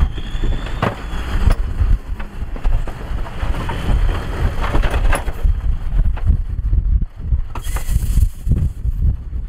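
Dump truck tipping out a load of rock and dirt, its engine running under a heavy low rumble while rocks knock and tumble off the raised bed. Wind buffets the microphone.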